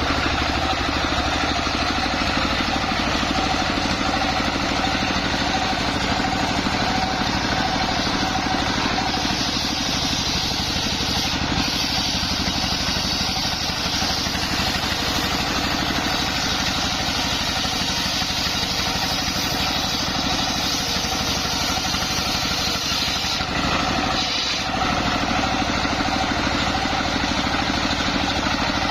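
Engine of a homemade circular sawmill rig running steadily at a constant speed, with a brief dip in level about three quarters of the way through.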